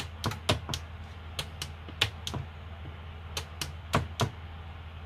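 About a dozen sharp clicks, mostly in close pairs at irregular intervals, over a steady low hum.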